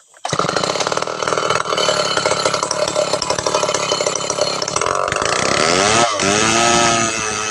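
Two-stroke chainsaw starting about a third of a second in and running steadily at high revs. About five seconds in its pitch falls and rises again, and near the end a wavering pitched sound takes over.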